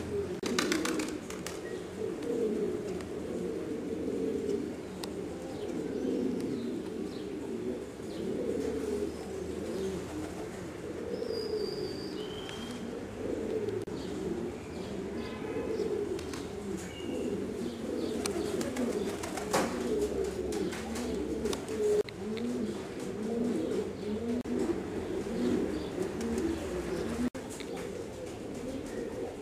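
Buchón Jiennense pouter pigeons cooing, many birds at once in a continuous, low, overlapping warble. A few brief high chirps come in about halfway through.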